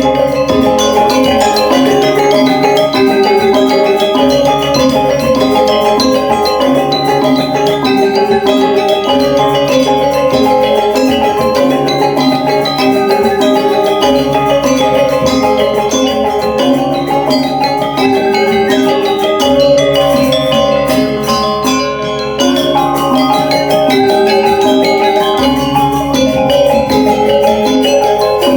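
Balinese gamelan playing the accompaniment for a Rejang dance: bronze metallophones ring in fast, dense notes over a repeating lower melodic figure.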